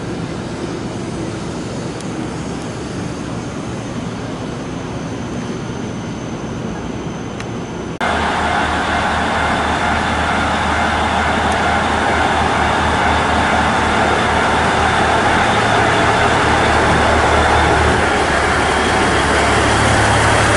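A quieter even rumble gives way abruptly, about eight seconds in, to a JR KiHa 110 series diesel railcar's engine running with a steady low hum. It grows louder as the railcar pulls out of the platform.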